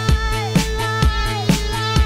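Background music with a steady beat: a drum hit about twice a second over a bass line, with a sliding lead line on top.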